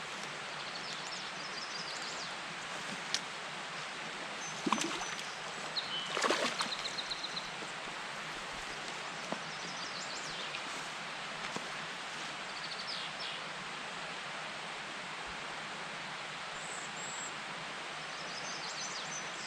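Steady outdoor background hiss with small birds chirping briefly every few seconds, a few sharp clicks, and a short cluster of knocks about five to seven seconds in.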